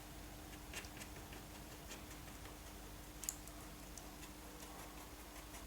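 Faint, irregular small clicks and taps of a wooden stick working water effects gel on baking paper, with one sharper click about three seconds in, over a low steady hum.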